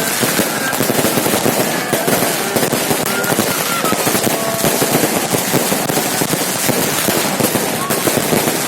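Firecrackers and fireworks going off in a dense, continuous barrage, so many pops at once that they merge into one steady crackle.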